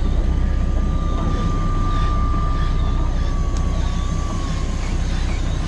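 Fishing boat's engine running with a steady low rumble, with a thin steady whine over it that fades out near the end.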